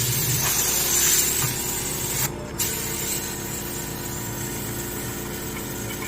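Glaze spray gun hissing steadily over the hum of its running air compressor. The spray cuts out briefly a little over two seconds in, then resumes.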